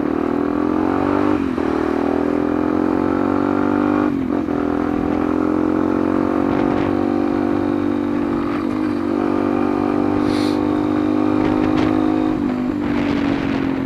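Yamaha Lander 250's single-cylinder engine running under way, its pitch creeping upward and dipping briefly four times.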